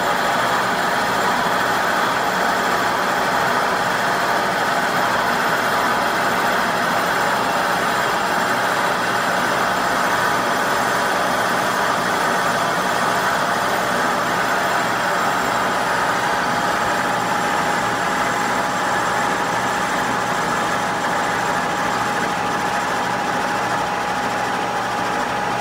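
Kearney & Trecker horizontal milling machine slab-milling a cast-iron power hammer crosshead with a helical roughing mill on the arbor: a steady cutting noise over the running spindle drive. A steady whine comes in about two-thirds of the way through.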